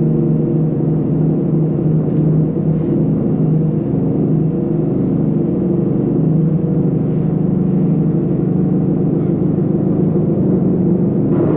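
Drum feedback: amplified drums sustaining a steady drone of several low pitches that waver and beat against each other, with a brief swell of brighter noise near the end.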